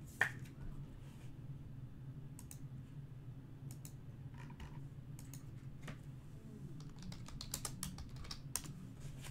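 Scattered light clicks and taps of hands handling small objects at a table: one sharp click just after the start, then sparse ticks that grow busier over the last couple of seconds. A steady low hum runs underneath.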